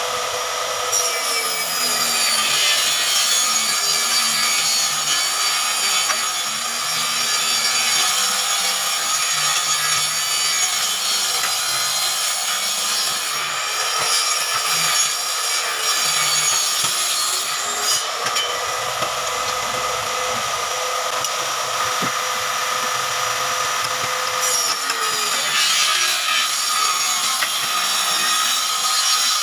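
Table saw ripping a large wooden panel: the motor and spinning blade run steadily under load while the wood is fed through, and the pitch dips as the blade bites into the cut, about a second in and again near the end.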